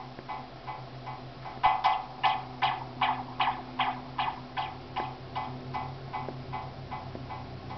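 Stripped-down break in a hip-hop backing track: sharp pitched ticks about three a second over a steady low hum, the ticks getting stronger about a second and a half in.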